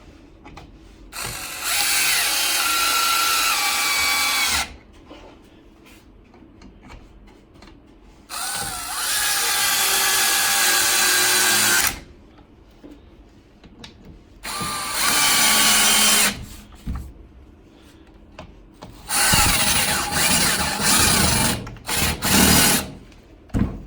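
Cordless drill/driver with a hex (Allen) bit driving screws into a wooden rack, in several bursts a few seconds long with pauses between, the motor's whine shifting in pitch as each screw tightens. Near the end come shorter, choppier bursts as the last screws are snugged down.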